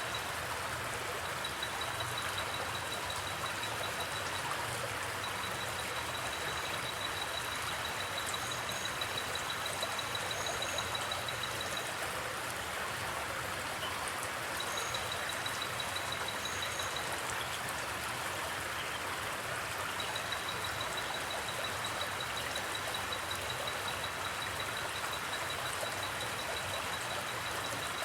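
River water running with a steady rushing, with a cricket trilling in a fast high pulse that stops and starts every few seconds. A few short, high double chirps come through between about 8 and 17 seconds in.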